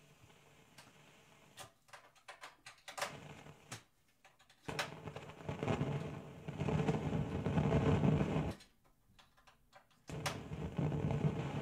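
Handling noise from sound gear being adjusted: a run of clicks and knocks, then longer stretches of rustling and rumbling bumps, as a faulty speaker setup is fiddled with.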